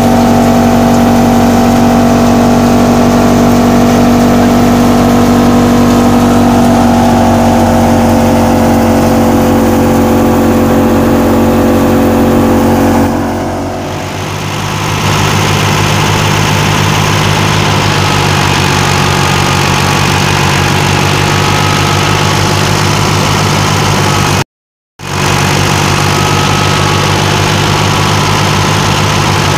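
A wheat thresher runs with a steady pitched hum, powered by belt from the side pulley of an Al-Ghazi diesel tractor. About halfway through, the sound changes to the tractor's engine running steadily up close, and the sound cuts out for about half a second near the end.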